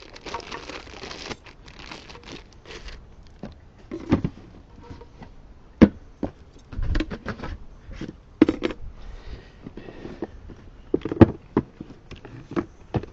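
Hand work on small equipment and cable: irregular sharp clicks and knocks, the loudest about six and eleven seconds in, with rustling and crinkling between them.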